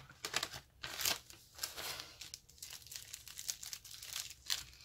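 Packaging crinkling and rustling in irregular crackles as a small wrapped item is unwrapped by hand.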